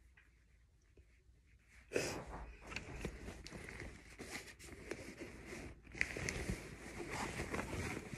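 Fabric rustling and rubbing as a shirt and leggings are rolled up tightly by hand, starting about two seconds in after a quiet moment.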